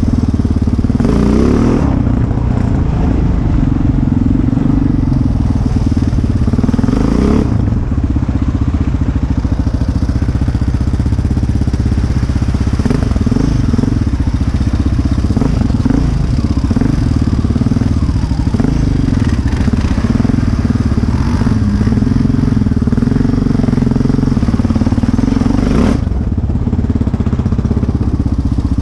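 Sport ATV engine running loud as the quad is ridden along a dirt trail, revving up and easing off several times.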